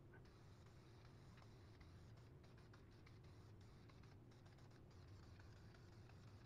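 Near silence: a low steady room hum with a few faint, scattered ticks.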